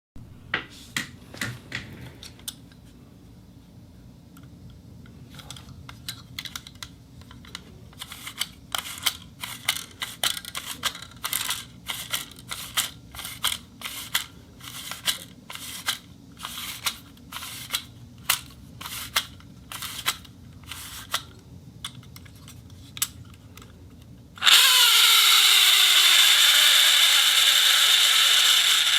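Vintage reel being worked by hand: irregular mechanical clicks for most of the stretch, then, about 24 seconds in, a sudden loud steady spinning noise whose pitch slowly falls.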